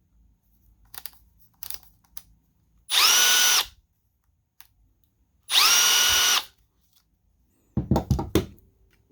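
Milwaukee M12 Fuel brushless cordless tool run with no load in two short trigger pulls, each under a second: the motor whine starts slow, speeds up quickly, then holds steady. A few light knocks near the end.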